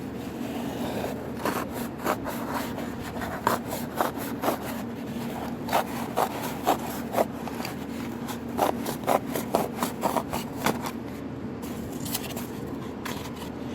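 A blade cutting through styrofoam cups: a run of short squeaky, crunching scrapes, several a second, dying away about eleven seconds in with a few last ones near the end. A steady low hum runs underneath.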